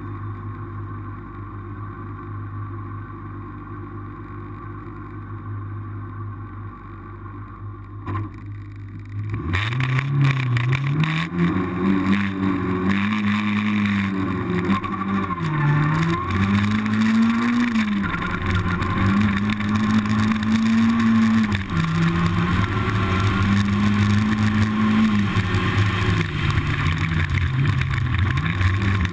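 A rally-raid competition vehicle's engine running hard, revving up and holding, with the pitch dropping sharply several times at gear changes or lifts. For about the first nine seconds there is only a steady low engine hum before the loud engine comes in.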